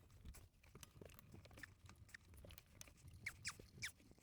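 Faint handling sounds as a rubber drive belt is worked onto a snowmobile's clutch: scattered light clicks and scrapes, with a few short squeaks about three to four seconds in.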